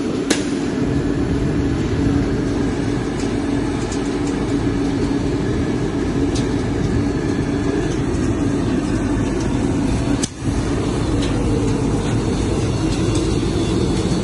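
Machinery of a drying and screening plant for building chemicals running steadily, a dense mechanical noise with a steady low hum, briefly cut off about ten seconds in.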